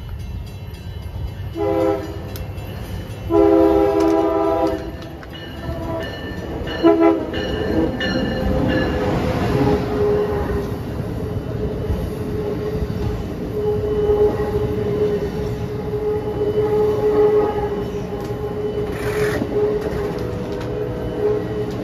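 Amtrak Acela Express trainset sounding its multi-tone horn, a short blast, a longer blast and a brief toot, then running past at speed with a rush of wheel and air noise and one steady whine held to the end.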